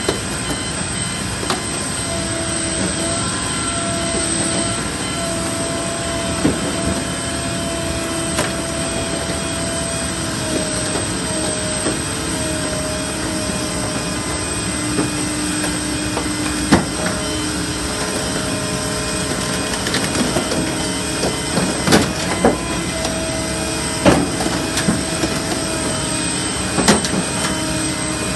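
Steady machinery running with a wavering mid-pitched tone, broken by irregular sharp metallic clicks and knocks that come more often in the second half.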